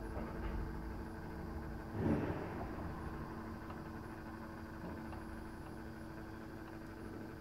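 Motorised display turntable running with a steady low hum and rumble, with a brief louder noise about two seconds in.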